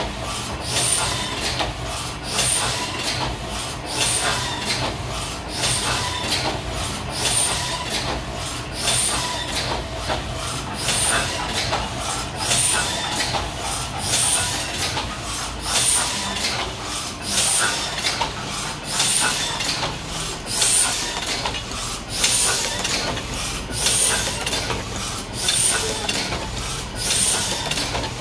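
Heidelberg Windmill platen press running steadily while hot foil stamping, one cycle about every 1.6 s. Each cycle brings a sharp clack and a hiss of air over the machine's steady mechanical running.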